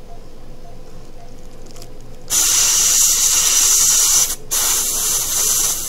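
Dental air syringe blowing compressed air over freshly applied bonding agent in a filled tooth, to evaporate its solvents and thin it. The loud, even hiss starts about two seconds in, breaks off briefly around four seconds, then resumes.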